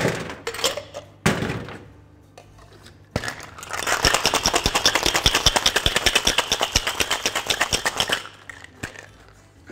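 Steel two-tin cocktail shaker closed with a sharp knock about a second in. From about four seconds in it is shaken hard for about four seconds, ice rattling against the tins in quick, even knocks of about six or seven a second, then it stops.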